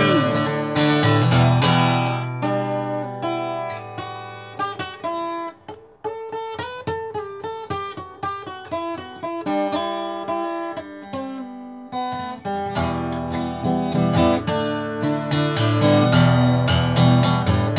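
Acoustic guitar played solo: strummed chords at first, thinning about four seconds in to single picked notes in a short melodic passage, then full strumming again from about thirteen seconds in.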